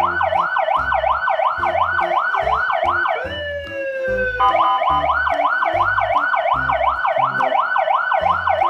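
Ambulance siren in a fast yelp, its pitch sweeping up and down about three to four times a second. About three seconds in it breaks into one long held tone for about a second, then the fast yelp resumes. A low rhythmic thumping runs underneath.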